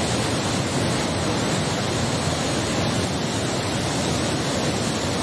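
Floodwater rushing down a swollen river: a steady, even rush of turbulent water.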